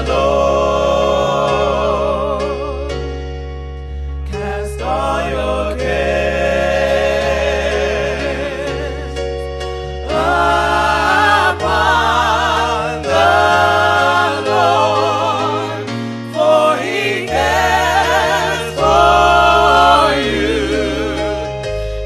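Gospel music: voices singing long held notes with vibrato over steady bass notes, sung as by a choir.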